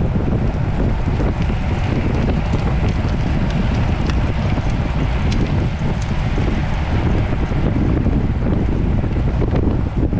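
Wind buffeting a road cyclist's camera microphone while riding, a steady loud rumble with a few faint ticks through it.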